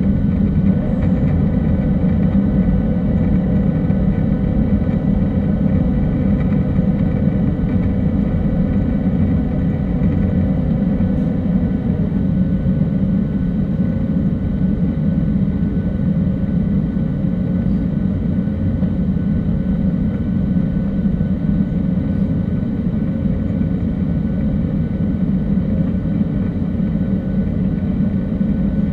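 Steady cabin noise of a Boeing 737-800 climbing out after takeoff: the low rumble of its CFM56-7B turbofan engines and the rush of air past the fuselage, with a few faint steady whining tones above it.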